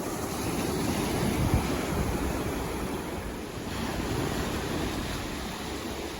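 Ocean surf: a steady rushing wash of waves, swelling about a second in and easing briefly past the middle before building again.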